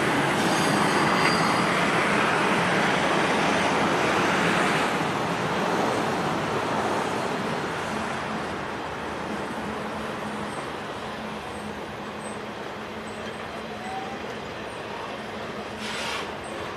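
Double-stack intermodal freight cars rolling across a steel railroad overpass: a steady noise of wheels on rail. It is louder for the first five seconds, then eases off a little.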